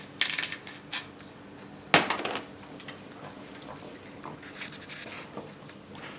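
Wooden spoon stirring and scraping through red curry sauce in a stainless steel frying pan, a few quick strokes, then a sharp knock about two seconds in, after which the stirring goes on more quietly.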